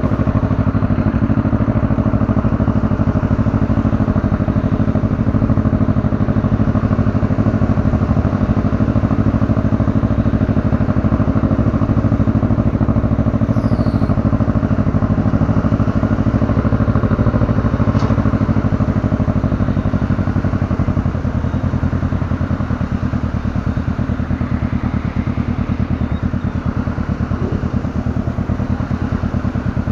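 Motorcycle engine running steadily under a constant rush of noise, a little quieter from about two-thirds of the way in.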